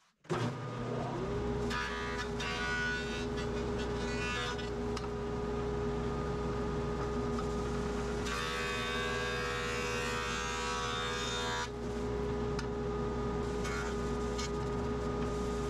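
Ridgid benchtop jointer switched on, its motor whine rising for about a second as it comes up to speed and then running steadily. The cutterhead shaves a wooden board in short passes, a hissing cut briefly about two seconds in and a longer one from about eight seconds to eleven and a half seconds.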